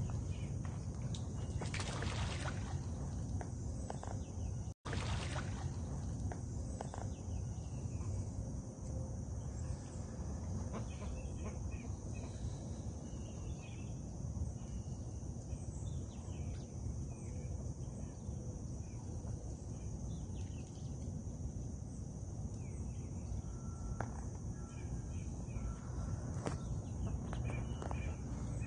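Outdoor ambience: a steady low rumble, a constant high-pitched insect drone, and scattered faint bird chirps.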